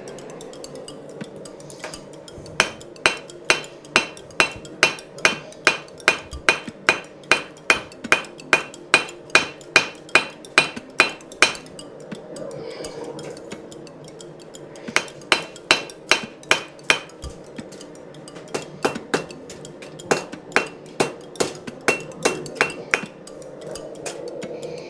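Blacksmith's hammer striking steel stock on an anvil in three runs of steady blows, about two to three a second, each with a short metallic ring, with pauses between the runs. A steady rushing noise runs underneath.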